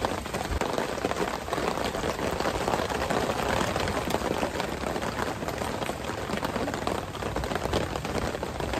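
Steady rain falling on a plastic tarp overhead.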